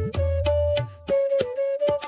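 Background music with a steady beat, a held melody line and a bass layer.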